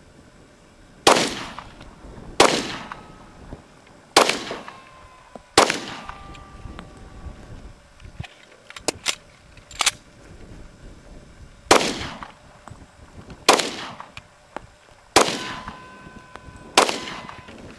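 Glock 23 .40 S&W pistol being fired: seven shots at a steady pace, about a second and a half apart, with a pause of several seconds in the middle broken by a few smaller sharp clicks. Faint ringing tones trail some of the shots.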